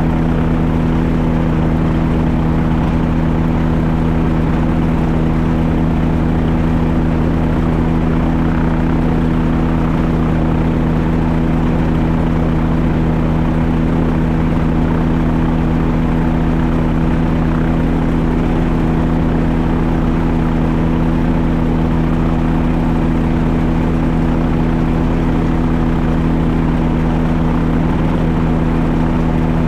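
Small aircraft's engine and propeller idling on the ground before take-off, at a steady, unchanging pitch.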